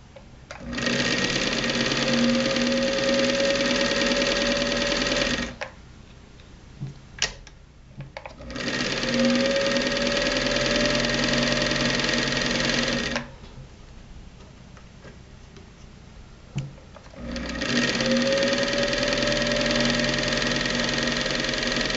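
Electric sewing machine running at speed three times, about five seconds each. Its motor pitch rises a little as each run gets going. In the short pauses between runs a few clicks are heard.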